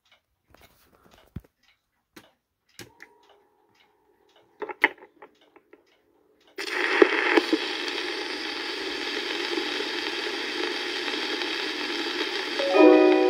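Scattered small clicks and knocks from a portable suitcase turntable being handled. About six and a half seconds in, the stylus drops onto a 1922 Victor 78 rpm shellac record, bringing in loud, steady surface hiss and crackle. Near the end, the dance band's waltz starts up over the hiss.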